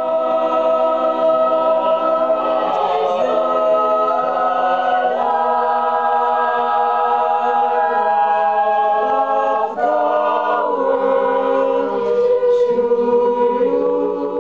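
A small choir of mixed voices singing slow, long-held chords without accompaniment, the harmony shifting to a new chord every few seconds.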